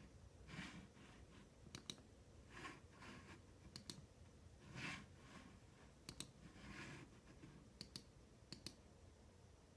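Computer mouse button clicked about five times, each click a quick press-and-release pair, with soft breathy swishes in between; quiet.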